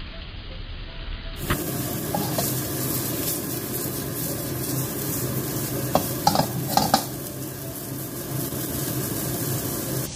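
Beaten egg with shrimp frying in hot oil in a pan, a steady sizzle that gets louder about a second and a half in. A quick cluster of sharp clicks comes about six to seven seconds in.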